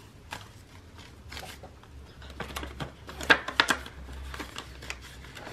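Paper banknotes rustling and a clear plastic binder pocket crinkling as bills are handled and slid into it, with a few sharper clicks and crackles about three and a half seconds in.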